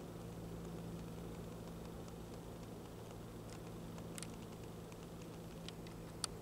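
Meltwater dripping from icicles: a few sharp ticks, the loudest near the end, over a steady low hum.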